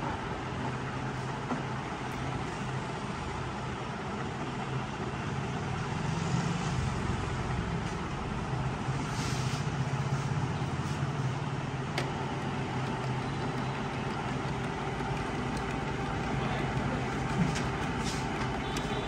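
Epson ink-tank printer running its long initial setup cycle, a steady mechanical hum and whir from its motor, with a single click about twelve seconds in.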